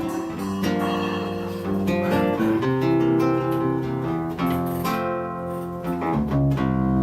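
Samba instrumental intro on plucked and strummed acoustic strings, 7-string guitar and cavaquinho, playing chords and melody. A deep low note comes in about six seconds in.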